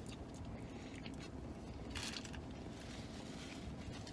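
Faint chewing of a mouthful of burger, with a soft rustle of paper about two seconds in, over a low steady background hum.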